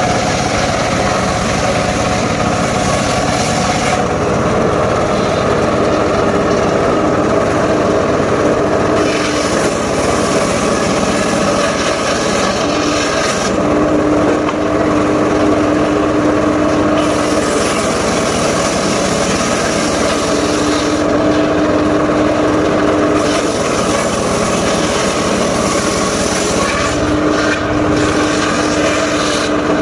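Engine-driven mobile circular saw running steadily while ripping mahogany and waru timber. Its sound changes every few seconds, from a harsher hiss while the blade is in the wood to a clearer whine between cuts.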